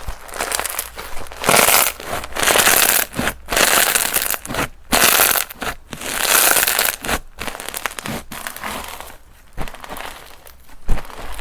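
Slime being kneaded and stretched by hand, crackling and crinkling in several irregular bursts of about a second each, separated by short pauses.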